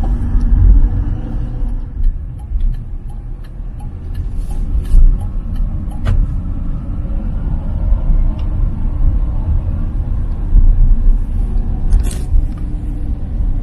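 Car heard from inside the cabin while driving: a steady low rumble of engine and tyre noise, with a few light clicks.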